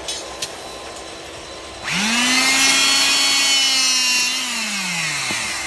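The electric motor and hydraulic pump of a handheld 220 V hydraulic rebar cutter start up about two seconds in and run at a steady high whine. Over the last second the pitch sinks as the motor slows, ending in a sharp snap.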